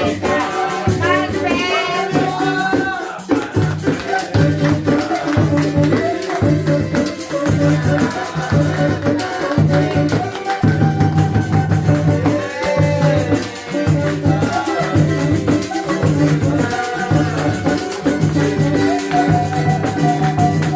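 Artcelsior Luxo cuíca played in a steady samba rhythm, its low grunting ('roncando') notes pulsing on and off with higher notes sliding up and down in pitch, with a shaker rattling along.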